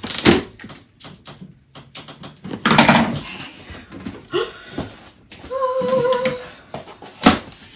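Scissors slitting the packing tape on a large cardboard shipping box, then the cardboard flaps being pushed open and papers inside rustling, with sharp clicks and knocks. About two thirds in there is a brief wavering pitched vocal sound, and a sharp knock comes near the end.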